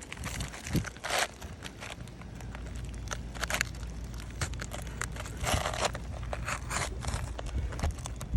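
An asphalt roofing shingle being handled and slid into place, with gritty scraping and rustling in several short bursts, over a steady low rumble.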